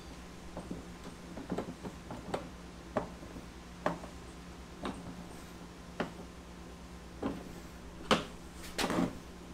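Wrench tightening a bolt on a garden cart's steel handle bracket: short metallic clicks about once a second, the loudest near the end.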